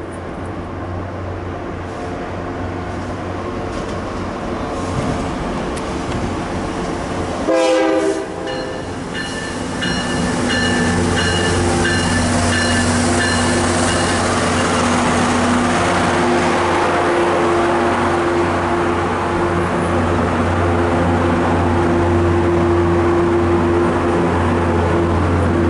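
Diesel locomotive bringing a passenger train into a station: a steady engine drone, a short horn blast about eight seconds in, then the locomotive bell ringing for about five seconds. After that the engine and the rolling wheels of the coaches grow louder as the train passes close by.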